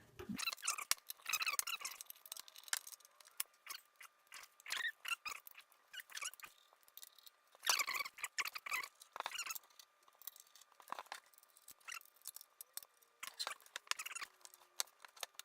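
Taking apart the metal chassis of a Dell 5324 network switch by hand: a run of small clicks, scrapes and squeaks, in irregular bunches.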